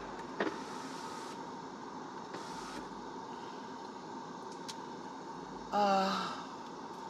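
Steady hiss of a car's air-conditioning blower inside the cabin. Two short hushing noises come about one and two and a half seconds in, and there is a brief vocal sound about six seconds in.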